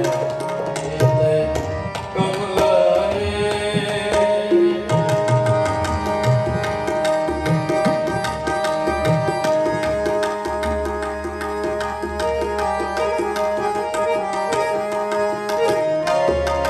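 Harmoniums and tabla playing kirtan. The harmoniums hold steady sustained notes while the tabla plays quick strokes, which grow denser about five seconds in.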